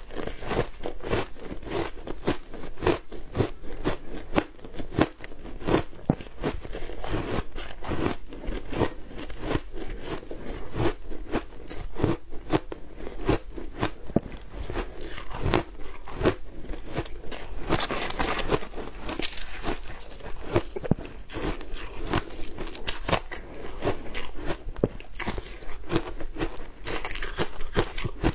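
Biting and chewing mouthfuls of shaved ice coated in matcha and milk powder: dense, irregular crunching that goes on without pause.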